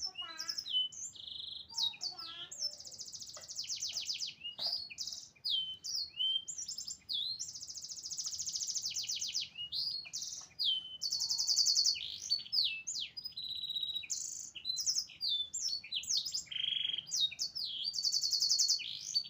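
Canary singing a long, almost unbroken song of rapid buzzy trills, sweeping whistled notes and quick chirps, high-pitched throughout.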